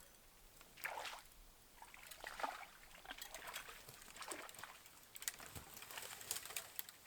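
Faint, irregular splashing and sloshing of shallow lake water at the shoreline, as a hooked smallmouth bass is brought in close to shore.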